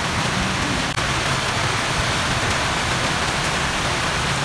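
Steady rushing noise of falling water, even throughout, with one faint click about a second in.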